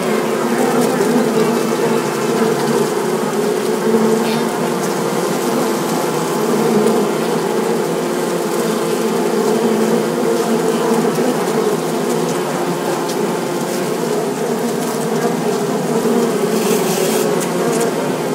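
A swarm of bees buzzing steadily, a dense drone.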